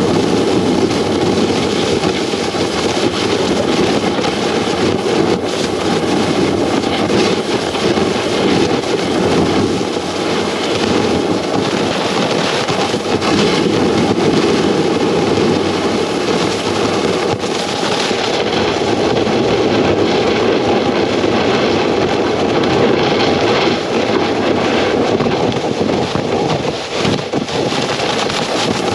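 Snowboard sliding over packed snow: a steady rushing scrape from the base and edges, picked up by a camera mounted on the board, mixed with wind.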